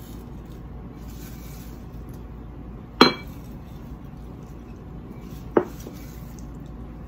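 Glass mason jar clinking against a glass bowl twice, a sharp ringing clink about three seconds in and a lighter one some two and a half seconds later, as dried rose petals are scooped into the jar.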